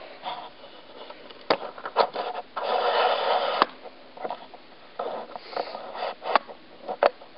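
Handling noise from a camera being picked up and repositioned: scattered sharp clicks and knocks, with a scraping rustle lasting about a second roughly three seconds in.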